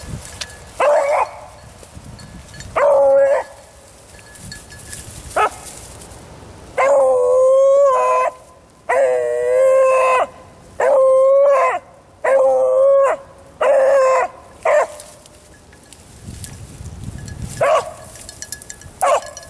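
A beagle baying, about eleven long drawn-out bawls, the longest lasting over a second and coming in a close run through the middle: a hound giving voice while trailing a rabbit.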